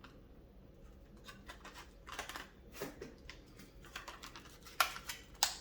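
Hands handling small computer hardware: light scattered clicks and rustling, with three sharper clicks near the end.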